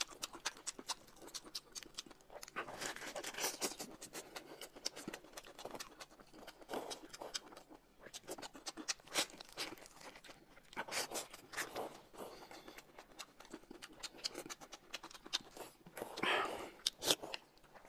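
Close-miked eating sounds: chewing and crunching of lettuce wraps with many short clicks, and noodles slurped from a cup near the end.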